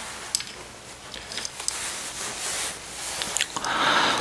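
Close-up rustling and crinkling handling noise, with scattered small clicks and taps and a louder stretch of rustling near the end.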